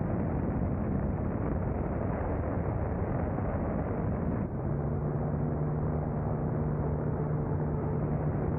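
Continuous rumbling flight noise from aboard a glider in the air. After a brief dip about four and a half seconds in, a steady engine hum with a clear pitch sets in over the rumble.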